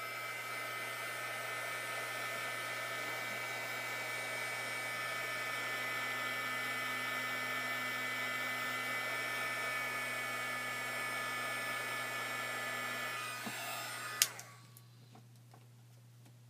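Craft heat gun blowing with a steady whine over rushing air, drying wet watercolour ink on paper. It cuts off with a click about fourteen seconds in.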